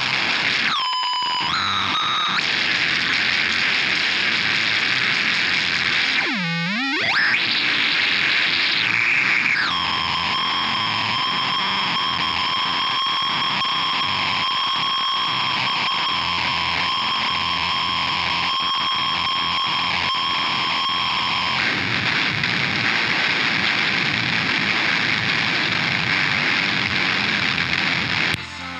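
Harsh electronic noise from a Forcefield 2000 phase-locked-loop noise circuit: dense distorted static with two swooping dips in pitch early on, then a steady high squeal of several held tones for about twelve seconds, then back to static. The noise cuts off just before the end.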